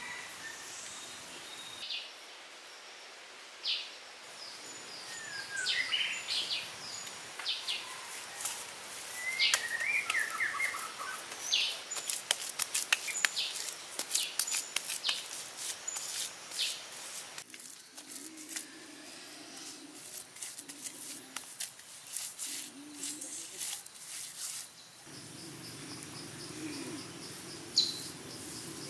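Birds calling and chirping in forest, with many short sharp clicks and taps through the middle and a low hum in the later seconds.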